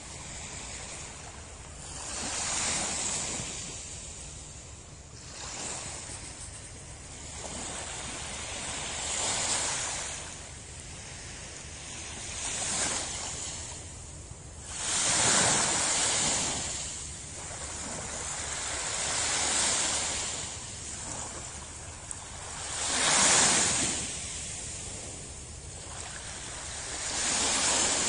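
Small waves breaking and washing up on a sandy shore, each one swelling and fading over a few seconds; the biggest come a little past halfway and again about three-quarters through.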